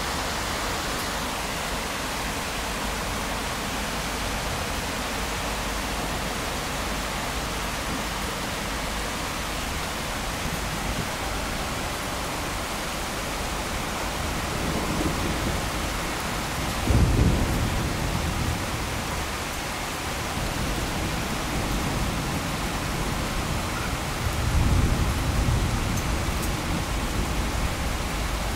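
Rain falling steadily in a thunderstorm, a continuous hiss. Thunder rumbles through it in the second half: a louder, sudden clap a little past the middle, and another rolling rumble near the end.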